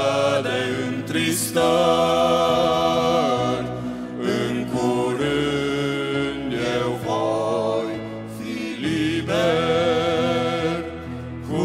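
Male vocal quartet singing a gospel song a cappella in close harmony, with long held chords in phrases a few seconds apart and voices sliding between notes.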